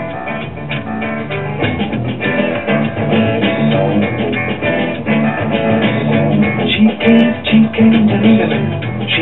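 A 1965 Magnavox Astro-Sonic console stereo playing guitar music with bass from an LP record on its record changer.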